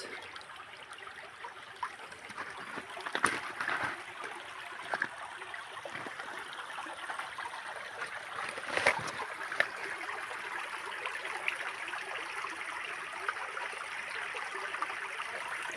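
Shallow creek water running and trickling steadily, with a few short knocks, the loudest about nine seconds in.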